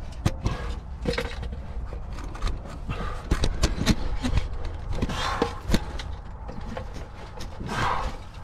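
Knocks and scrapes of boots, hands and gear against limestone rock while squeezing through a narrow cave passage, with heavy panting breaths, two of them loudest about five and eight seconds in.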